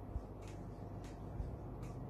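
Marker writing on a whiteboard: three short, scratchy strokes as letters are drawn, with two soft low thumps.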